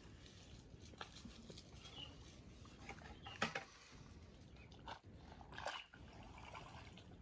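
Dry grass and straw rustling and crackling as they are pulled by hand from a muddy ditch, in scattered short bursts, the loudest about three and a half seconds in.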